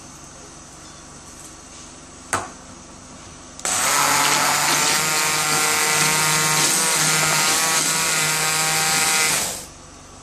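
Electric hand blender running in a bowl of curd, its motor whining steadily for about six seconds before cutting off and winding down. A single knock comes a second or so before the motor starts.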